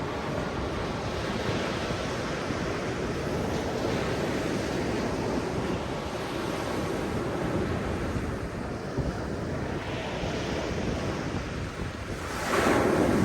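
Ocean surf: waves washing continuously, with a louder wave breaking near the end. Wind buffets the microphone.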